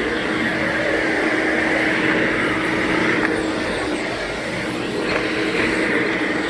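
Vacuum cleaner running steadily as it is worked over carpeted stair treads: a constant motor whine and rush of air with a steady low hum.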